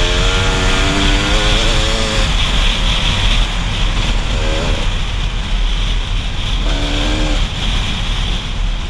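Enduro dirt bike engine running as the bike is ridden along a dirt trail, its pitch changing with the throttle a few times, over a constant rush of wind and road noise.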